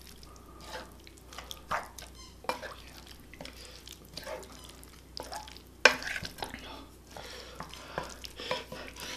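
Wooden spoon stirring and mixing rice into a saucy octopus stir-fry in a pan, with irregular scrapes and knocks against the pan. One sharper knock comes about six seconds in.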